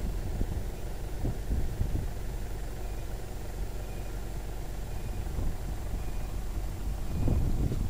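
Wind buffeting the microphone: a low, gusty rumble that swells and eases, stronger near the end.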